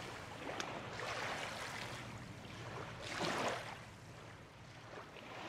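Small waves washing over shallow gravel and pebbles at the water's edge, coming in soft swells, the loudest about three seconds in.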